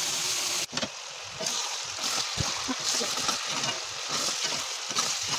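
Meat and potatoes sizzling in a pan while being stirred with a spoon, which scrapes and knocks against the pan. The sizzle drops suddenly about three quarters of a second in, then goes on with irregular scraping.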